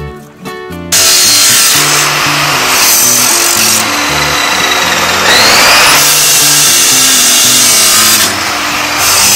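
Abrasive chop saw cutting through steel strips: the cut-off wheel grinds with a loud, harsh hiss starting about a second in, and a rising whine is heard once near the middle.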